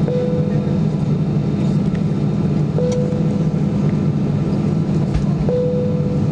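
Cabin noise of an Airbus A320-214 taxiing: a steady hum from its CFM56 engines at low thrust, with a faint knock from the landing gear about five seconds in. A short steady tone comes about every three seconds.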